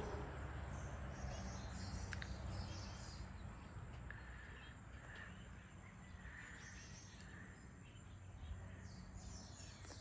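Faint outdoor evening ambience: birds chirping and calling in short repeated notes, over a low steady rumble.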